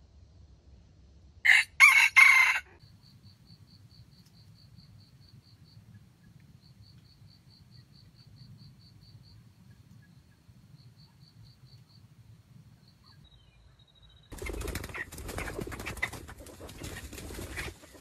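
A jungle fowl rooster crows once, short and loud, about a second and a half in. A faint, fast, high-pitched ticking follows for several seconds. Near the end comes a burst of wing flapping and rustling.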